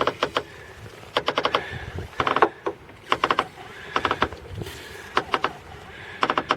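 Front suspension of a VAZ-2111 crackling as the steering is turned: short groups of rapid clicks, about once a second. It is the steering-related creak/crackle that the title puts down to a worn strut top mount bearing.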